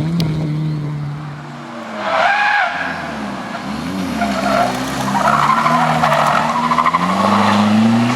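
Fiat Cinquecento rally car's tyres squealing as it slides, with a wavering screech starting about two seconds in, over the engine running at changing revs. The engine revs up near the end.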